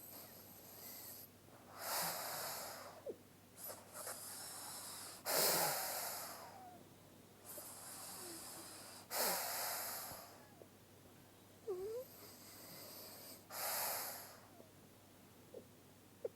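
A sleeping pug breathing heavily through its nose: a run of wheezy, hissing breaths at uneven intervals, some louder than others.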